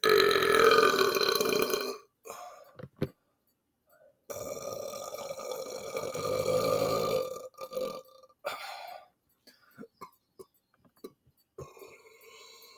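A man belching on purpose: a loud burp of about two seconds, then a longer burp of about three seconds, with shorter, quieter burps between and near the end.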